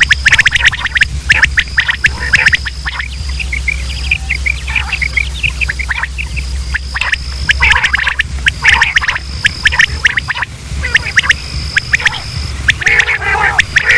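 Quail calling in dense bursts of rapid, chattering notes, several birds overlapping: a recorded quail call of the kind played as a lure for quail hunting. Over a steady low hum and a broken high whine.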